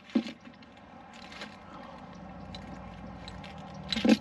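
Steel tension chain of an Andersen weight distribution hitch and its threaded bolt being handled: a click at the start, a few light ticks, and a loud clinking clatter of the links just before the end, over a low steady rumble.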